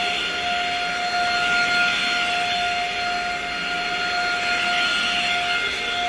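Cordless stick vacuum running on carpet: a steady high-pitched motor whine over the rushing hiss of its suction.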